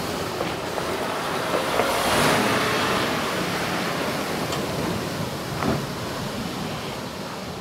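Mercedes-Benz Arocs 8x8 dump truck driving past on a gravel and mud track: its diesel engine running and tyres rolling over gravel with a few sharp ticks, loudest about two to three seconds in and fading as it moves away. Wind is on the microphone.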